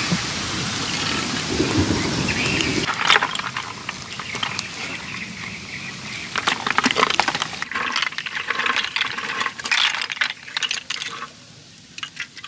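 Cooked snails poured from a tipped clay pot into a woven bamboo basket, the shells clattering and knocking in quick clusters of clicks as they are scraped out. Before that, a steady hiss that cuts off abruptly about three seconds in.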